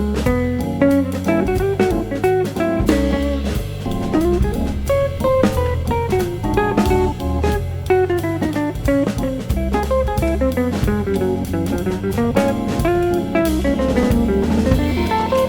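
Background music: a guitar-led instrumental with bass and drum kit and a steady beat.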